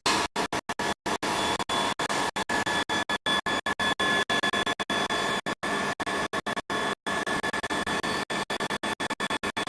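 Core drill laser welding machine running: a steady hiss with two thin high whine tones, cut by many brief, irregular dropouts to silence.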